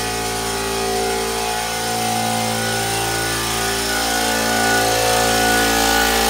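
Upright air compressor running steadily: a loud, even motor-and-pump hum with a hiss above it, growing slightly louder as it goes.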